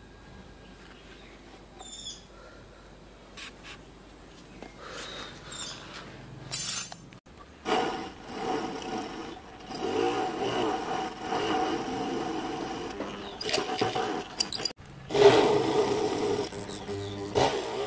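Small handheld motor fitted with a drill bit, whining as it drills small holes through MDF board. It runs in several bursts over the second half, stopping briefly between holes; the first half holds only faint handling sounds.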